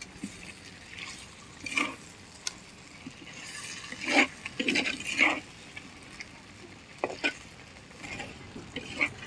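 A spatula stirring and scraping chicken leg pieces in thick masala in a wide clay pan. Short scrapes and knocks come every second or two, with a cluster about four to five seconds in, over a faint hiss.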